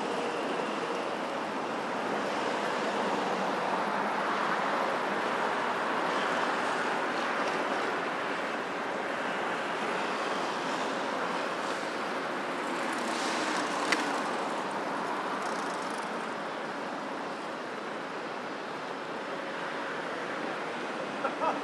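Steady wash of road traffic on a busy city street, swelling briefly as a vehicle passes closer, with a single sharp click about fourteen seconds in.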